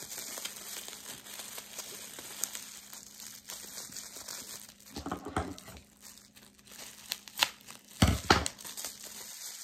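Packaging crinkling and rustling as a small gift is unwrapped by hand, with louder crackles and handling noises near the end.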